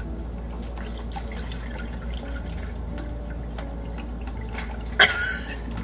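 Iced coffee poured from a glass bottle into a tall glass packed with ice: a steady pour and splash over the ice, with a short louder burst about five seconds in.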